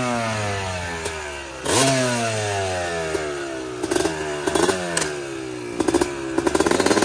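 2005 Yamaha YZ250 single-cylinder two-stroke engine being blipped while the bike stands still: the revs fall slowly away from one throttle blip, a second sharp blip comes just under two seconds in and dies away, then the engine runs rough near idle with irregular crackling pops.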